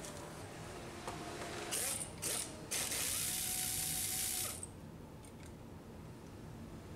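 Ratchet wrench clicking rapidly as it loosens a windshield wiper arm's retaining nut. There are two short runs about two seconds in, then a longer run of about a second and a half that stops around four and a half seconds in.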